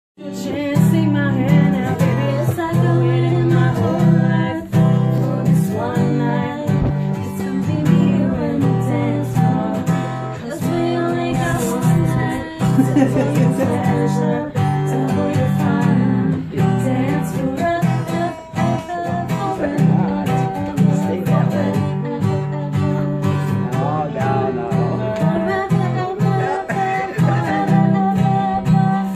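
Acoustic guitar being played, a steady run of chords and notes without a pause.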